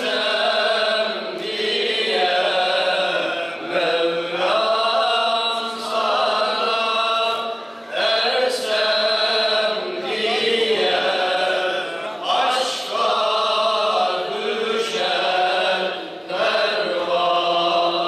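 Male voices singing a Turkish ilahi, an Islamic devotional hymn, in long, drawn-out melodic phrases with short breaks between them, amplified through microphones.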